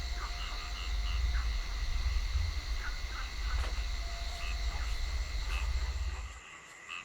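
Frogs and insects calling: a steady high trill with short chirps every half second or so, over a low rumble that stops about six seconds in.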